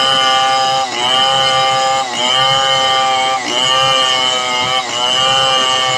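Stihl 070 two-stroke chainsaw running at high revs while ripping lengthwise along a log. The engine note dips briefly and recovers four times, about every second and a quarter, as the chain takes and eases off the load.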